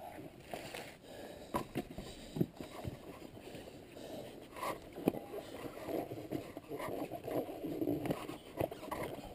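Irregular knocks and rubber scraping as a dirt bike's knobby rear tire and spoked rim are handled and worked over on concrete while the tire is being fitted, with a few sharper knocks among the rustling.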